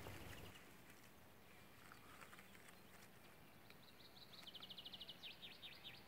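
Near silence with faint birdsong: a few scattered high chirps, then a quick high trill about four and a half seconds in.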